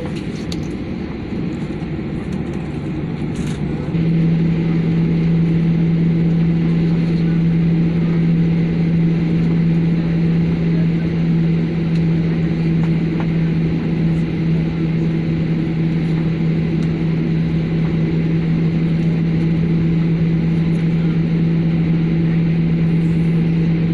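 Airplane engines running with a steady low drone, getting louder and a little higher about four seconds in, then holding steady.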